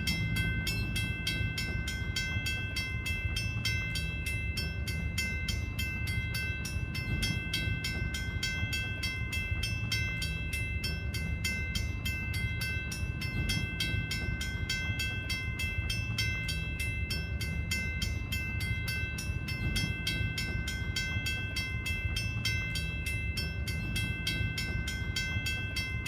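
Western-Cullen-Hayes mechanical railroad crossing bell ringing continuously with rapid, evenly spaced strikes and a steady metallic ring, over a low hum.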